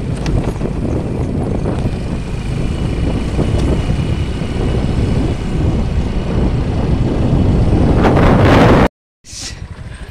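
Motorcycle engine running while riding, with wind rushing over the microphone. It cuts off suddenly about nine seconds in, and quieter background follows.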